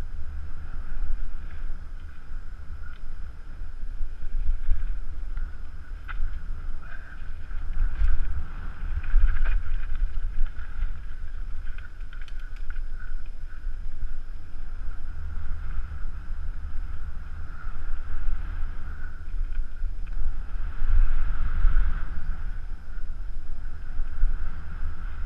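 Wind buffeting a helmet-mounted camera at speed, over the rumble of mountain-bike tyres on a dry dirt trail, with scattered clicks and knocks from the bike over roots and bumps.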